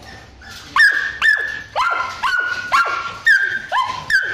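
Small dog yipping: a run of short, high-pitched barks, each jumping sharply up in pitch, about two a second, starting about a second in.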